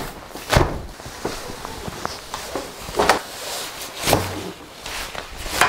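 Large collapsible pop-up diffuser being twisted and wrestled by hand, its fabric and wire-rimmed frame rustling with several sharp swishes as it flexes.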